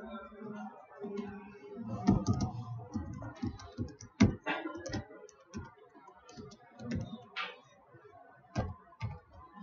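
Typing on a computer keyboard: uneven keystrokes, a few of them louder than the rest.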